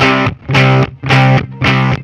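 Background music led by a distorted electric guitar, playing short chords or phrases with brief breaks between them.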